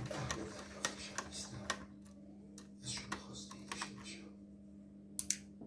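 Scattered light clicks and taps of hard plastic and small parts being handled while a laptop is taken apart, over a steady low hum.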